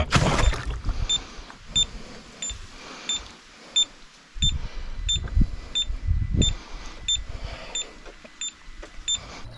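A regular series of short, high electronic beeps, about two a second, over low, uneven rumbling noise.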